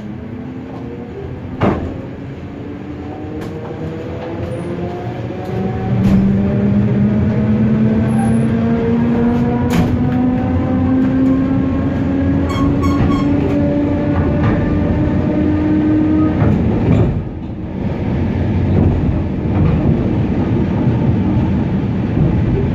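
Suburban electric train heard from inside its vestibule as it pulls away and gathers speed. The traction motors' whine climbs steadily in pitch over a rolling rumble, with occasional sharp wheel knocks over rail joints and switches. About 17 seconds in, the whine stops and the noise dips briefly before the rumble carries on.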